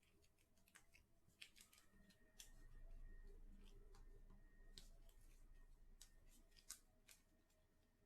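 Near silence with faint, irregular clicks and ticks of trading cards being handled and sorted by hand.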